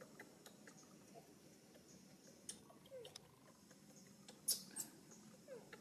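Near-silent outdoor background with scattered faint clicks and ticks, two brief falling squeaks, and two sharper clicks about four and a half seconds in.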